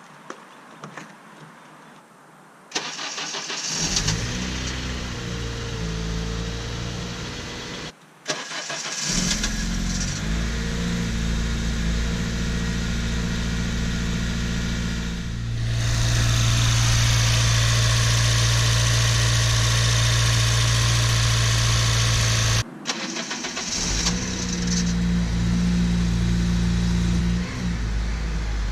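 Honda Civic Si K20 four-cylinder engine starting up several times and settling into a steady idle, with a quick rattle on startup. The owner suspects the rattle comes from the timing chain tensioner or the VTC gear, a common issue on these engines.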